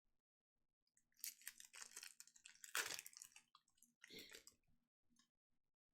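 Foil hockey card packs crinkling and rustling as they are handled, in a couple of crackly spells with a short pause between.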